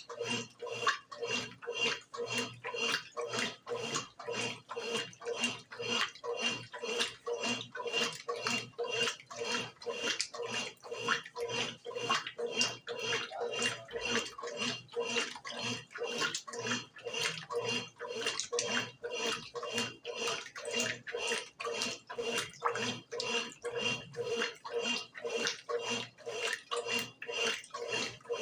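Brastemp BWG11 top-loading washing machine agitating a load, with water sloshing in a steady rhythm of about two strokes a second over the hum of the motor.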